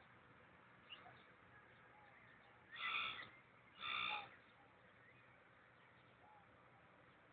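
A bird calling twice, loud short calls about a second apart, over faint distant bird chirps.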